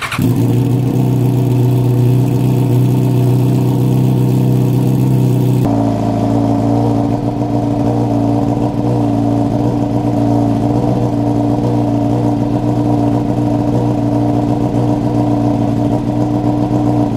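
Yamaha R6's inline-four engine running steadily at idle, just fired up after a stator replacement to check that the charging system works. The engine note changes abruptly about six seconds in, then holds steady again.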